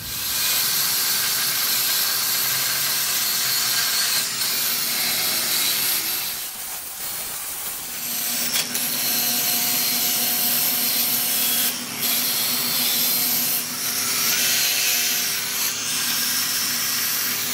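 Red Milwaukee angle grinder with a knotted steel wire brush, running steadily and scrubbing rust and scale off the face of an iron anvil: a harsh scratching over the motor's whine. It eases off briefly about six seconds in, then bears in again.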